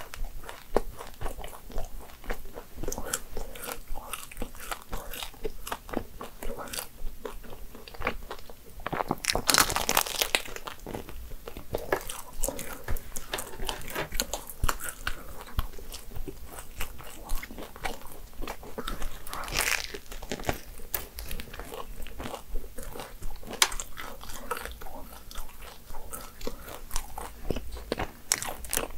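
Biting into and chewing a flaky chocolate croissant (brownie chocolat pastry), its crisp layers crunching and crackling in irregular bites, with the loudest crunches about a third of the way in and again about two-thirds through.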